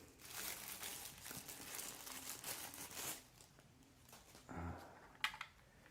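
Packaging crinkling and rustling for about three seconds as a product is pulled out of its box, then quieter, with a sharp click near the end.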